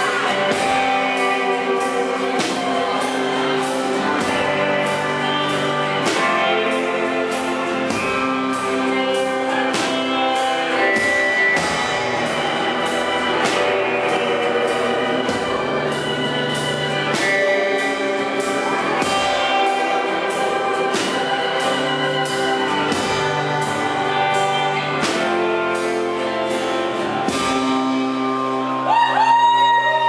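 Live indie band playing: acoustic guitar, keyboard and drum kit with a steady beat, growing louder near the end.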